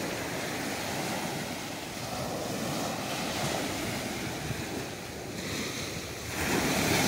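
Ocean surf breaking and washing along the shore rocks, a steady rushing that swells louder about six seconds in, with wind buffeting the microphone.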